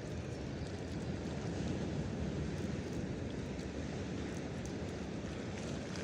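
Steady wind buffeting the microphone over the wash of surf on the shore.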